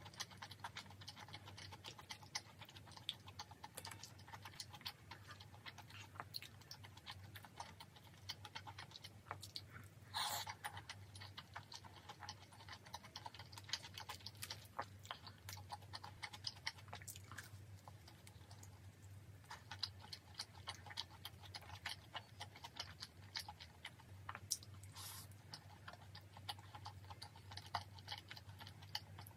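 Close-miked chewing of spicy tteokbokki, a quick run of small wet mouth clicks and smacks over a faint low hum, with one louder clatter about ten seconds in.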